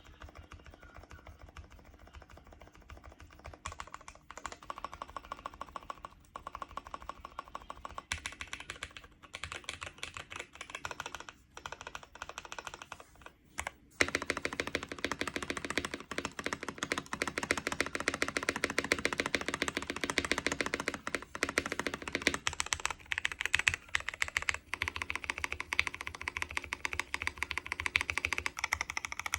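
Typing on a KBD Blade60 60% mechanical keyboard with lubed Kiwi switches and dye-sub PBT keycaps: a steady clatter of keystrokes. The typing is light for the first several seconds, then gets faster and louder about halfway through.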